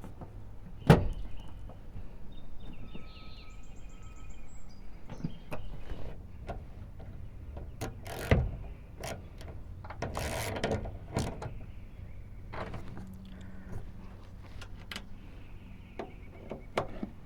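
Scattered clicks and knocks of door hardware and trim being refitted on a 1979 Dodge D-150's door, the sharpest knock about a second in, another knock partway through, and a longer scraping rustle just after it.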